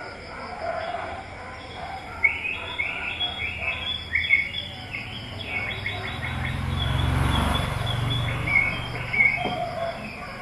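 Background of small birds chirping in short repeated calls, with insects trilling steadily behind them. A low rumble swells and fades in the middle.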